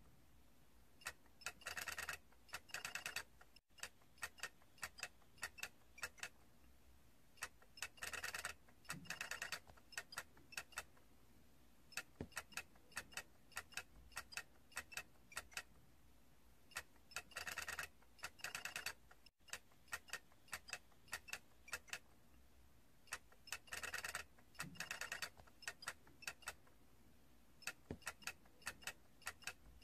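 Faint light plastic clicking from small stacked toy figures rocking against one another: scattered single ticks, with short bursts of rapid clicking every several seconds.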